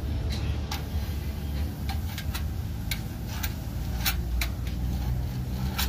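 Scriber point scratching and clicking on a galvanized steel sheet as it is traced around a steel disc template, in a dozen or so irregular sharp ticks, over a steady low hum.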